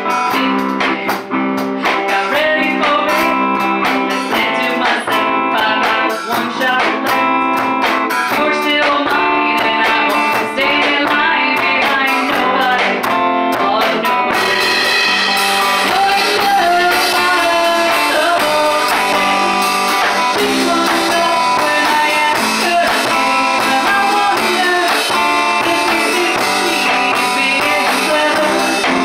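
Live band playing: a hollow-body electric guitar and an electric bass, with a woman singing into a microphone. The sound gets fuller and brighter about halfway through.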